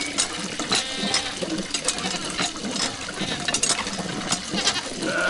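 Animal bleating, one quavering call about a second in, over frequent sharp clicks and clatters.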